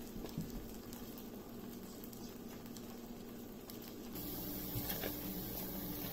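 Thick masala paste bubbling and spattering softly in a steel pan as it is stirred with a silicone spatula, with a few faint ticks. About four seconds in, a steady low hum comes up under it.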